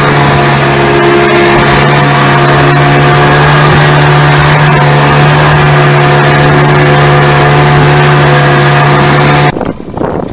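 Outboard motor on a small aluminium boat running steadily at speed, loud, with a constant hum under the rush of wind and spray. It cuts off suddenly near the end, and a much quieter sound follows.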